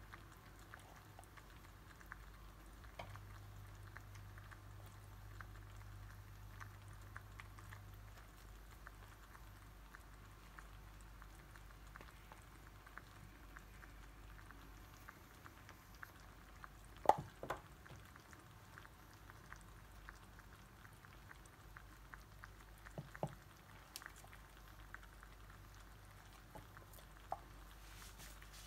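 Faint crackling of vegetables cooking in a tagine base, with scattered small ticks and a few soft clicks as pepper strips are laid on the cauliflower; the loudest clicks come about two-thirds of the way in.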